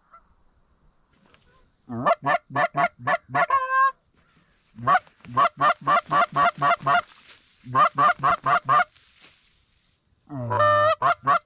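Hand-held goose call blown in three quick runs of short, upward-snapping clucks, about five or six notes a second, the first run ending on a longer drawn-out note. It imitates Canada geese to pull passing flocks into the decoys.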